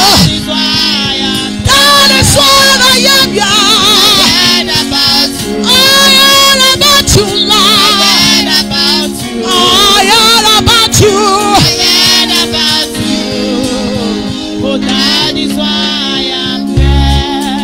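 Women's voices singing a gospel worship song into microphones in loud, wavering phrases, over steady held accompaniment chords and a light beat.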